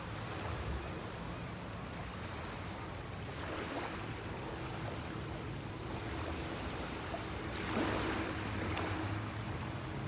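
Small waves lapping and washing over shallow sand at the shoreline, swelling louder about three and a half seconds in and again around eight seconds, over a low steady rumble.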